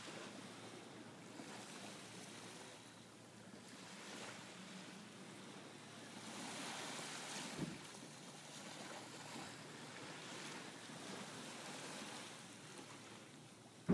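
Small waves washing gently onto a sandy shore, swelling and ebbing, fullest about halfway through. A brief soft thump sounds near the middle.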